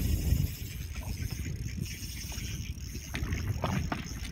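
Wind rumbling on the microphone and water lapping against a small boat's hull, with a few faint clicks, louder for the first half second.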